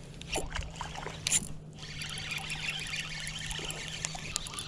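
Spinning reel being cranked to bring in a hooked fish: two sharp clicks first, then a steady faint whirr of the reel's gears from about two seconds in.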